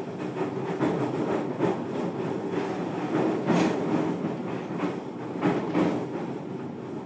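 Running noise of a JR Kyushu 303 series electric train, heard from inside a passenger car: a steady rumble of wheels on rail with irregular sharp clacks, the loudest about halfway through.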